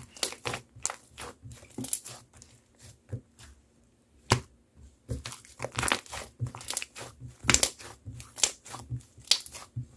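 Melon slime being squeezed and stretched by hand, making irregular crackling and popping sounds with one sharp pop about four seconds in.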